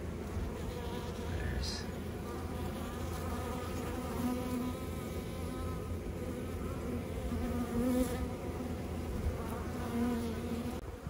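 Honeybees buzzing around broken honeycomb: a steady hum of many wings, with single bees flying close by now and then and briefly raising a louder, wavering drone.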